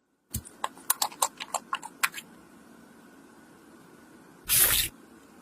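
Small objects being handled: a quick run of about a dozen light clicks and taps over two seconds, then a single short burst of rustling hiss near the end.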